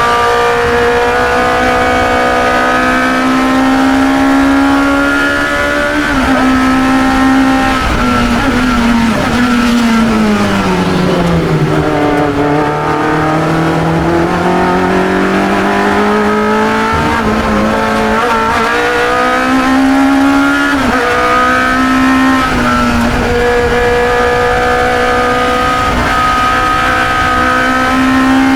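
Onboard sound of a 1972 Chevron B21 sports racer's 2-litre engine at racing speed. The engine pitch climbs, drops through a slowdown in the middle, then climbs again, with short dips where the driver shifts gear.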